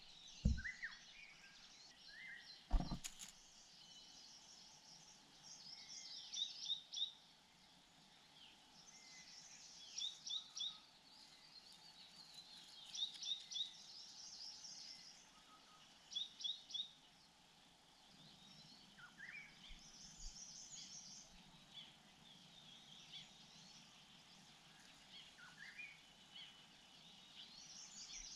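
Wild birds calling outdoors: short groups of three or four quick high chirps repeated every few seconds over a faint steady background, with two sharp thumps in the first three seconds, the second the loudest sound.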